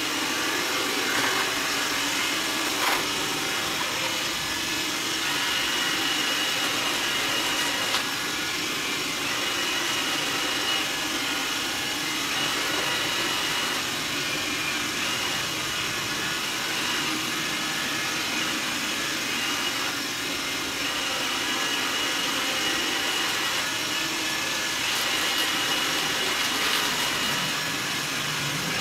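Xiaomi Mi robot vacuum running as it cleans a laminate floor strewn with rolled oats and powder, a steady suction-fan whir with a faint high whine at times and a few light clicks.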